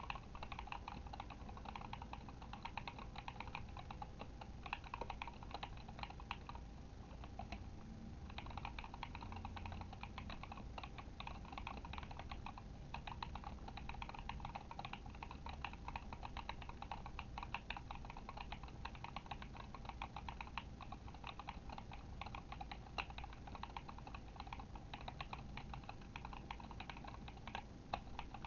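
Continuous typing on a Kemove Shadow mechanical keyboard with tactile Glorious Panda switches: a rapid, steady clatter of keystrokes, with a short pause about eight seconds in.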